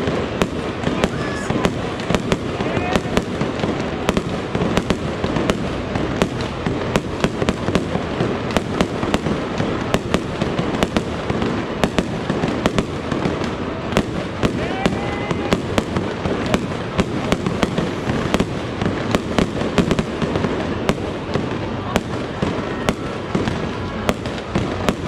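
Aerial fireworks display: a continuous barrage of sharp bangs and crackles, several reports a second, over a steady rumble of booms.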